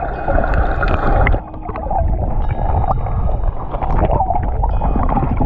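Wind buffeting the microphone in a loud low rumble, with choppy water splashing and gurgling against the hull of an anchored boat in irregular small knocks.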